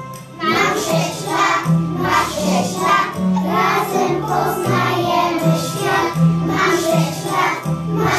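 A group of young children singing a song together over a recorded backing track with a steady bass line. The singing starts about half a second in, right after the instrumental intro.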